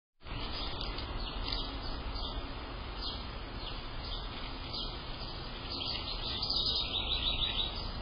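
Small birds chirping, with quick runs of short high notes that thicken near the end, over a steady background hiss.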